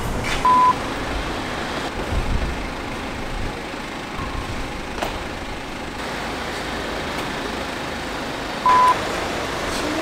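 Two short electronic beeps at the same steady pitch, one about half a second in and one near the end, over a low hum of background noise.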